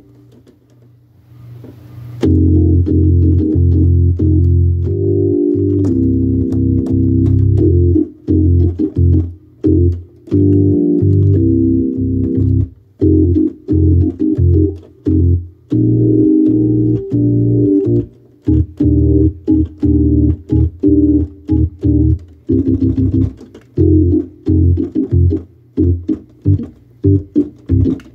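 Hammond organ playing chords over low bass notes. After a brief pause near the start, held chords give way to short, choppy chord stabs from about eight seconds in.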